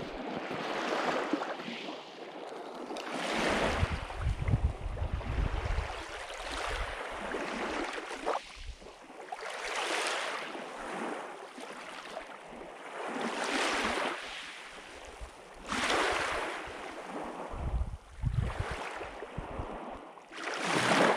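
Small lake waves breaking and washing up a pebble beach, swelling and ebbing every few seconds, with gusts of wind rumbling on the microphone.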